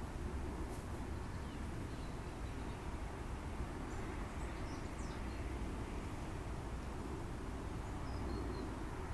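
Outdoor ambience over water: a steady low rumble, with a few faint, short bird chirps scattered through it.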